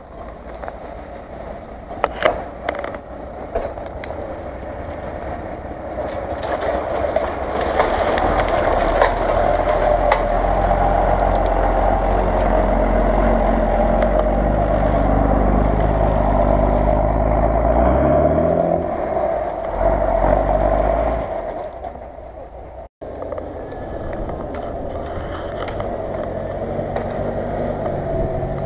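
Lifted Jeep Cherokee on huge mud tyres, its engine running as it drives through snowy brush. It grows louder as it nears and revs up with a rising pitch, with a few sharp cracks early on. After a sudden cut, the steadier engine of a UAZ-469 runs.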